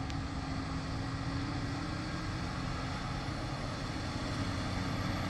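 Heavy tractor-trailer's diesel engine pulling under load up a steep mountain grade, a steady low drone.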